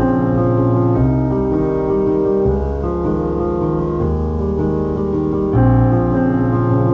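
Background music played on piano, changing chords about every second or two.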